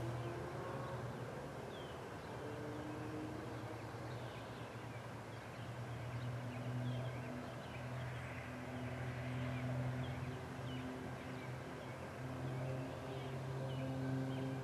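Steady low hum with slow, drawn-out tones above it, and many short, high chirps scattered throughout.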